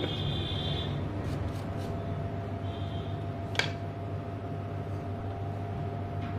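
Steady low hum with faint clicks of small objects being handled on a workbench, and one sharper click about three and a half seconds in. A thin high tone sounds briefly near the start and again near the middle.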